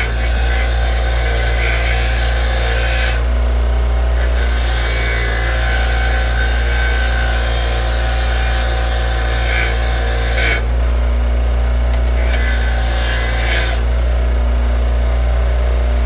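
Motor-driven wire wheel running steadily with a hardened steel socket held against it, a scraping, hissing brush over the motor's hum, cleaning the black quench scale off the metal. The scraping drops out briefly three times as the socket is lifted off the wheel, while the motor keeps running.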